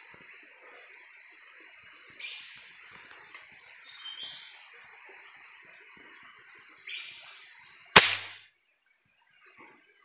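Rainforest ambience of a steady high-pitched insect drone with a few short bird calls, then a single sharp rifle shot about eight seconds in, the shot that brings down the bird it was aimed at.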